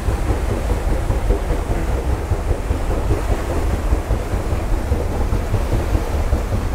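Wind buffeting the microphone on the deck of the paddle steamer Waverley under way: a steady low rumble with an even hiss over it.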